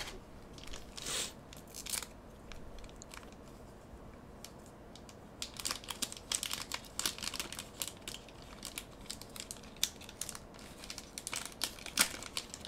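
Foil trading-card booster pack wrapper crinkling and tearing: a short rustle about a second in, then a dense run of sharp crackles through the second half.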